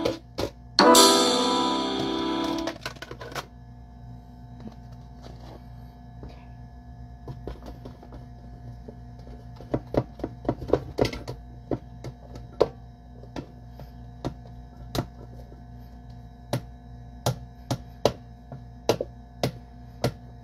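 A loud musical sound plays in two short bursts in the first three seconds. Then a plastic food container of little smoked sausages in barbecue sauce is tipped and tapped over an air fryer basket, giving a run of sharp clicks and knocks over a steady low hum.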